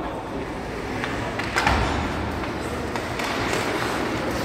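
Ice hockey play echoing in an arena: the steady scrape of skates on ice, with a sharp knock about a second and a half in and lighter knocks around it.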